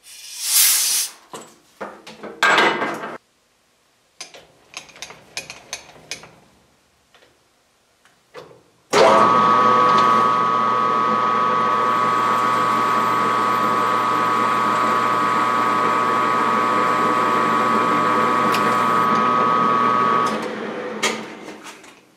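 A few handling clicks and knocks, then about nine seconds in a machine tool starts abruptly and runs with a steady, even whine for about eleven seconds while taking a very light boring cut in a tractor axle housing's ball-joint bore, then shuts off and winds down.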